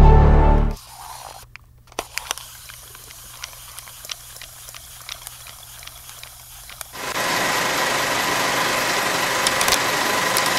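Eerie music cuts off under a second in. Then come sparse crackles and pops like old film or record crackle. About seven seconds in, a steady film-projector whir with hiss starts, as a sound effect over an old film countdown leader.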